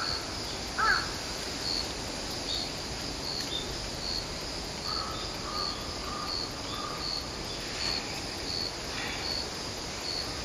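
A cricket chirping steadily, a short high chirp repeated a little under twice a second, as autumn insect song. A crow caws once about a second in, the loudest sound.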